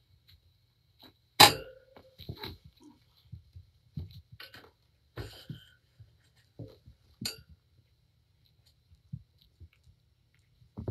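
Irregular knocks, taps and soft thumps as cats play in a pen around a carpeted cat tree, with a sharp, loud knock about a second and a half in and another near the seven-second mark.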